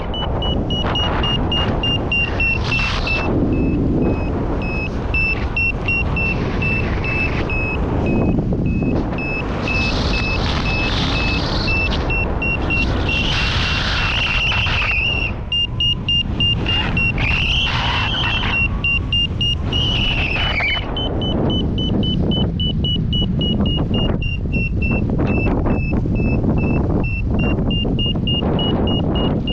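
Wind rushing and buffeting over the microphone in flight, with a paragliding variometer beeping rapidly at a high, nearly steady pitch throughout.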